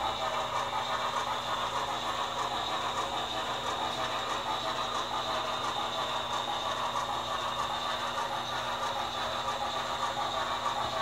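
HO scale model of a New York Central J-1 Hudson 4-6-4 steam locomotive pulling a short freight train along the track, a steady running noise.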